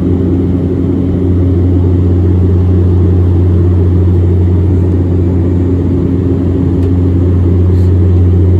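Airliner cabin noise: the engines' steady low hum with a few even overtones over a constant rush of air.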